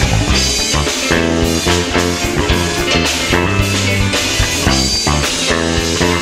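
Live band playing an instrumental passage with drum kit, bass and electric guitar at a steady beat.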